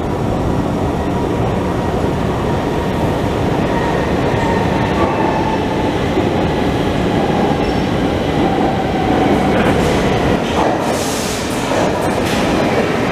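Stockholm metro train running through the underground station as a steady rumble, with a few short hisses near the end as the train pulls into the platform.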